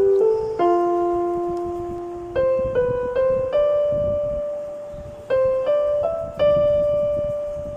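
Background piano music: a slow melody of single struck notes, each left to ring and fade, sometimes in quick groups of two or three.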